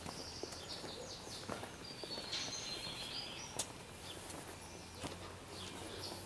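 Birds chirping and singing in short high phrases, strongest in the middle, over faint outdoor background noise, with a few scattered footsteps on a cobblestone street.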